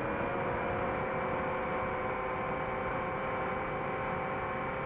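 DJI FPV drone's motors and propellers whining steadily in flight, heard through the drone's own onboard microphone, with several pitches in the whine drifting slightly up and down with throttle.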